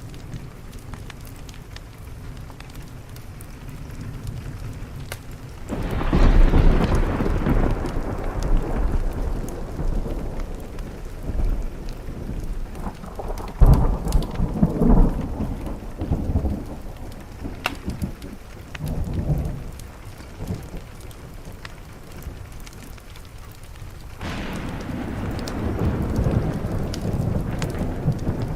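Thunderstorm: steady rain on a window, with a roll of thunder building about six seconds in, a sharper clap near the middle, and another rumble rising near the end.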